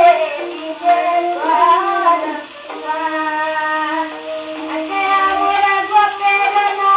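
A woman singing a Bengali song in raga Khamaj, played from an old shellac 78 rpm record on a gramophone with a soundbox pickup. The sound is thin with almost no bass, and the voice sweeps through ornamented turns about two seconds in.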